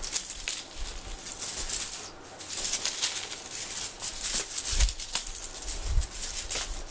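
Shiny plastic ribbon streamers of a cat-teaser wand crinkling and rustling as it is swished back and forth, with a couple of soft thumps in the second half.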